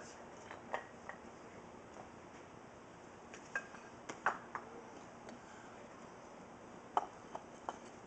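Rocks clinking and knocking against each other as they are picked through and handled: a scattering of sharp clacks, the loudest about four seconds in and again about seven seconds in.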